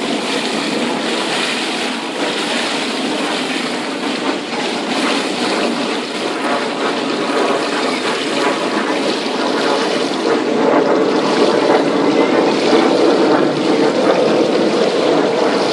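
Steady splashing and churning of pool water from swimmers kicking close by, growing a little louder about ten seconds in.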